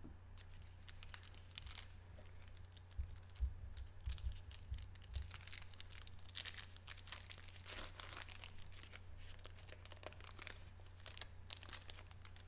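Faint crinkling and tearing of a trading-card pack's plastic wrapper as it is torn open and handled, with a few soft knocks about three to five seconds in.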